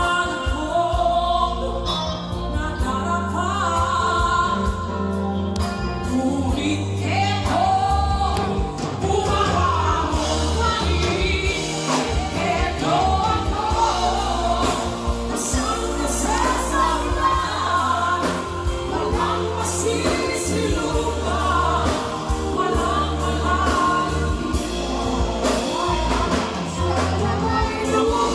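Music: a song with singing over a steady bass and drum beat.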